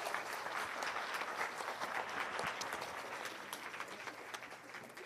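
Audience applauding, the clapping fading away toward the end.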